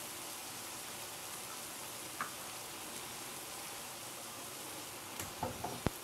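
Sunflower-seed cookies frying in avocado oil in a skillet: a soft, steady sizzle. Near the end come a few light clicks as tongs reach into the pan.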